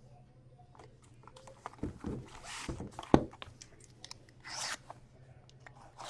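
Handling a shrink-wrapped cardboard box of hockey cards on a table: a few knocks about two seconds in and a sharp tap just after three seconds, with rustling and tearing of the plastic shrink wrap.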